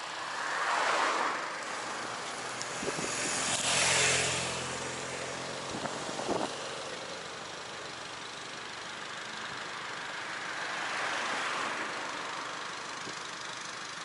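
Car driving along a road, a steady run of engine and tyre noise. Passing vehicles rush by about a second in, around four seconds in (the loudest, with an engine tone under it) and again near eleven seconds. A few light knocks fall in between.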